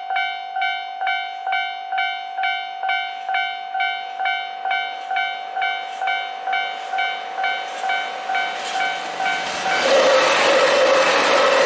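A level-crossing warning bell rings steadily, a little over two strikes a second. About ten seconds in, a KiHa 261 series diesel limited-express train passes over the crossing with a loud rushing noise that drowns the bell.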